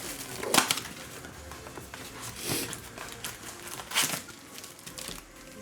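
Cardboard and foil-wrapper handling as a trading-card blaster box is opened: a few short crinkles and knocks, about half a second, two and a half and four seconds in.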